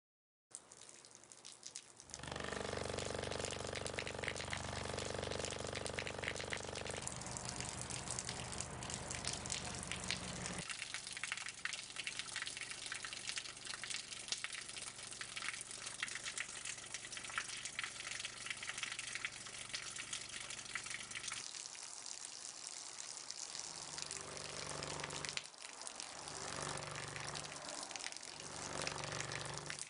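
Steady rushing of water, with a low hum underneath from about 2 to 10 seconds in and a few low pulses near the end.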